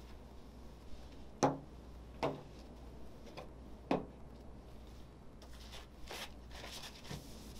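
Three short knocks of things being set down or tapped on a table, the first the loudest, followed a couple of seconds later by a paper towel rustling as it is picked up.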